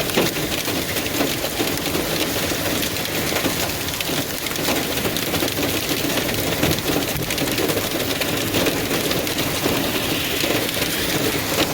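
Hail and heavy rain pelting down, a dense, steady patter of small impacts with no let-up.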